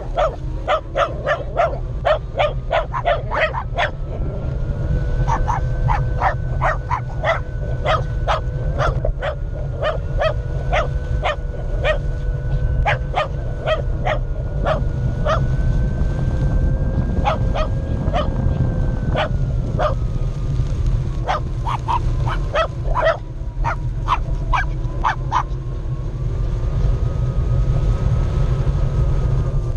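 Dogs barking repeatedly in quick runs of several barks a second, stopping near the end. Underneath, a steady low rumble of wind and the Onewheel's tyre rolling over grass, with the electric hub motor's whine rising and falling with speed.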